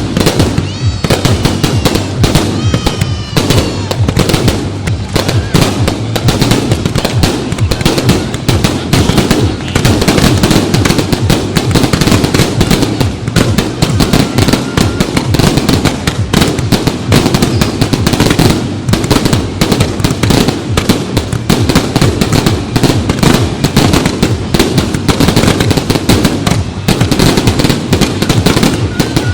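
A fireworks display: dense, continuous bangs and crackling from exploding shells, with a few whistles in the first few seconds.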